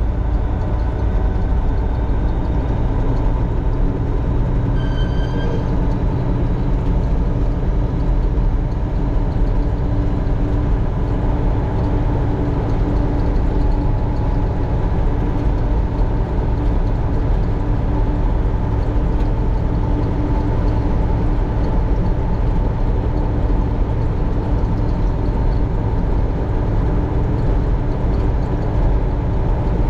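Heavy diesel machinery engine running steadily under load, a continuous drone with a steady hum. About five seconds in, a brief high beep sounds once.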